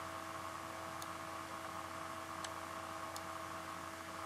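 Steady electrical hum and hiss, with a few faint, sharp clicks of a computer mouse spaced about a second apart.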